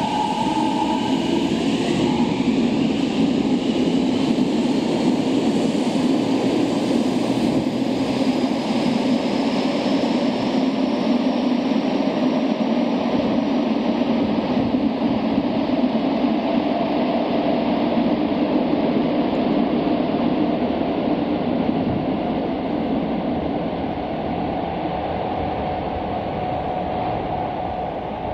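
Electric subway train running on rails: a steady loud rumble of wheels and running gear, with the motors' whine gliding upward in pitch in the first couple of seconds. The sound eases slightly near the end.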